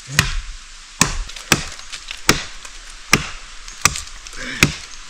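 Wood being chopped with a bladed tool: a run of about seven sharp, even strikes, roughly one every three-quarters of a second.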